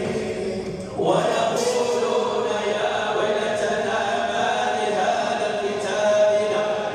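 Quran recitation in Arabic, chanted in long, held melodic phrases inside a large mosque prayer hall. There is a brief pause for breath, and a new phrase begins about a second in.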